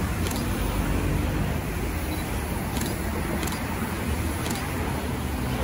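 Steady low rumble and hiss of vehicle and traffic noise, with a few faint high ticks.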